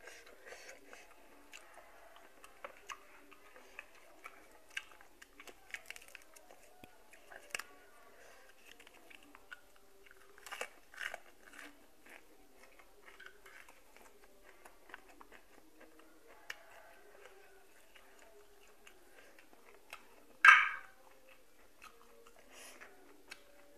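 A person chewing and eating boiled golden apple snails, with many small scattered clicks and mouth sounds, a few stronger ones about ten to eleven seconds in and one louder short sound about twenty seconds in.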